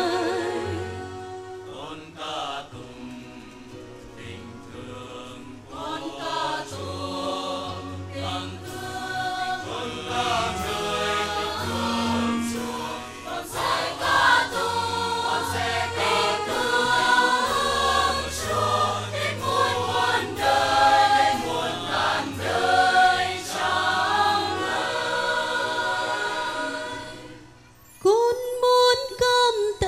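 Catholic hymn music: choir singing over instrumental accompaniment. The music dips briefly near the end, then a loud held note comes in.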